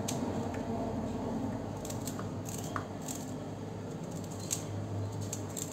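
Small knife cutting through fresh green garlic stalks held in the hand, a short crisp snip with each cut at irregular intervals. A low steady hum runs underneath.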